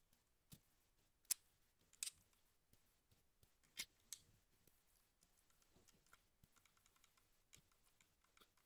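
Faint plastic clicks and snaps from an Xbox Series controller being handled as its shoulder bumper is fitted: a handful of sharp clicks in the first half, the sharpest about a second in, then light, quick ticking.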